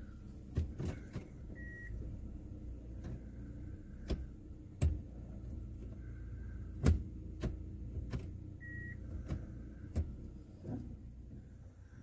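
A Kia Forte's engine idling steadily, heard from inside the cabin as a low rumble. Scattered clicks and knocks come over it, the loudest about seven seconds in. Two short beeps sound at about two and nine seconds.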